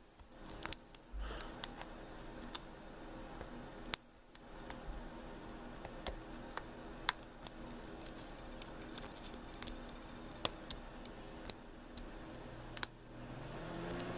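Light, irregular metallic clicks and ticks of a hook pick lifting and setting the pins of a brass pin-tumbler lock under a tension wrench, with some pins thought to be overset.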